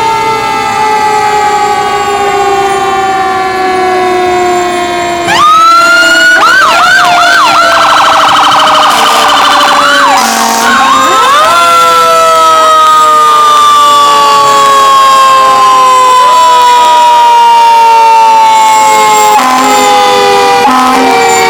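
Several fire truck sirens sounding together, with long, slowly falling wails. About five seconds in, a louder siren rises sharply, then whoops and warbles rapidly for several seconds before settling into another long, slowly falling wail.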